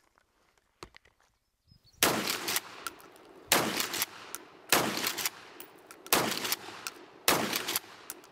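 Shotgun firing buckshot: five shots, a little over a second apart, starting about two seconds in, each trailing off in a short echo.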